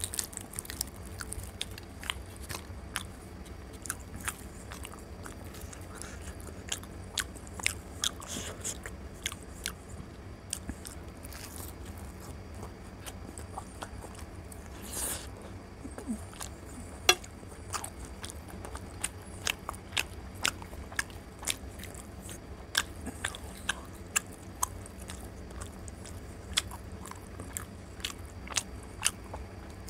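Close-miked chewing and wet mouth clicks and smacks of a man eating luchi (puffed fried bread) with egg curry. Many short, sharp clicks are scattered throughout.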